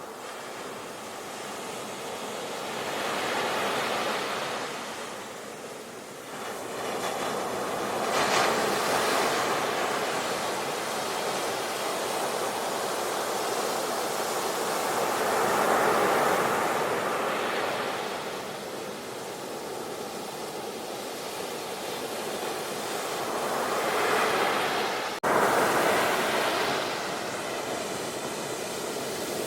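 Sea waves breaking and washing in, swelling and ebbing every several seconds, with an abrupt cut about 25 seconds in.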